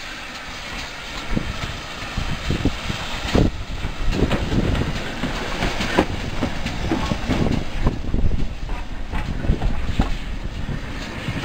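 GWR 5600 class steam tank locomotive No. 5637 rolling slowly past close by, a steady rumble with irregular knocks and clanks from its wheels on the rails.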